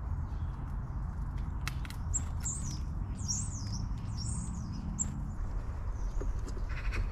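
A small bird giving a run of high, quick chirps from about two seconds in to about five seconds in. A steady low rumble sits underneath, and a few short clicks come just before the chirps.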